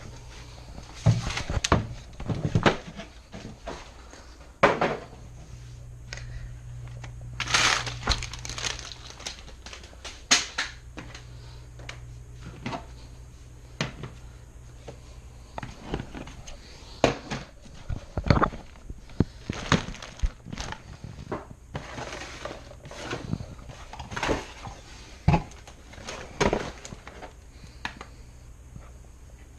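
Things being rummaged through and moved around: irregular clattering, knocking and crinkling as belongings are shifted, with many sharp knocks scattered throughout.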